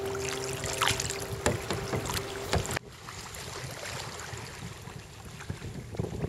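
Wind and choppy water around sea kayaks, with sharp splashes and knocks from the paddles and hulls and a steady hum underneath. About three seconds in the sound drops abruptly to a quieter wash of wind and water.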